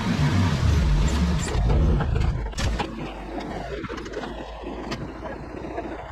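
A motor vehicle's engine running, loud for the first two and a half seconds and then settling to a steadier, quieter hum, with a few sharp clicks over it.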